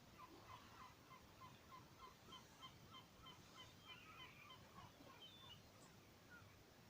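A gull giving a faint, rapid series of short yelping calls, about three or four a second, for some five seconds before it trails off.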